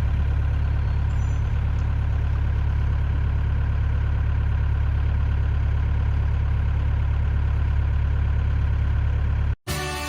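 Narrowboat's diesel engine running steadily with a deep hum, cut off abruptly near the end as music begins.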